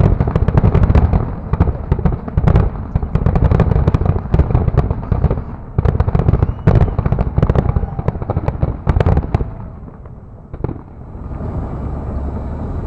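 Aerial firework shells bursting in a rapid barrage of overlapping bangs and crackles over a deep rumble. The barrage thins out after about nine seconds, leaving a single bang near the end.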